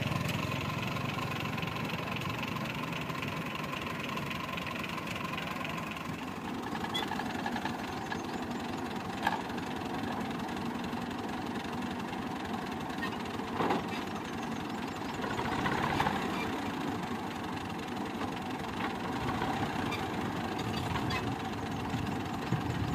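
A tractor's diesel engine idling steadily, its tone shifting about six seconds in, with a few short sharp knocks over it.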